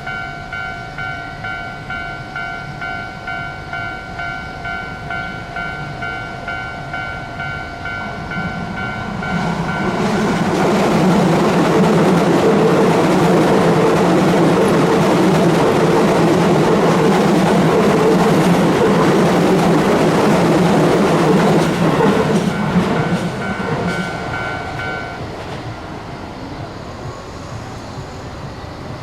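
Japanese level-crossing warning bell on the Keio Line ringing in an even, rapid beat, then a Keio Line electric train passes over the crossing, loud for about twelve seconds and covering the bell. The bell stops shortly after the train has gone, near the end.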